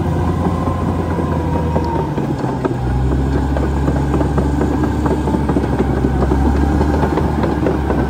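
CAT D6R XL bulldozer's diesel engine running under load as the machine backs up, with a steady stream of clanks and knocks from its steel tracks. The engine note changes about three seconds in, and the track clatter grows as the tracks come close.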